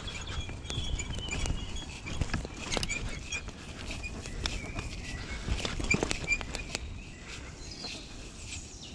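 Kettler e-bike clattering and knocking over a rough, wet forest trail: irregular rattles and bumps from the frame and parts over the tyres' low rumble, with short high chirps, likely birds.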